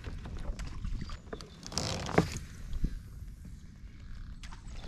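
Light knocks and handling noises aboard a fishing kayak over a low rumble, with a sharper knock and a brief hiss about two seconds in.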